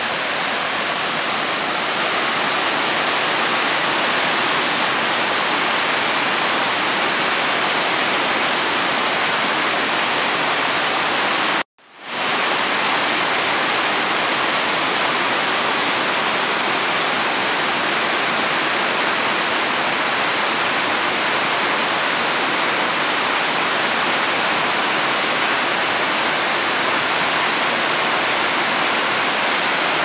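Steady rush of a multi-tiered waterfall about 20 m high, water crashing down over rock into its plunge pool. About twelve seconds in, the sound cuts out suddenly for a moment and then comes back.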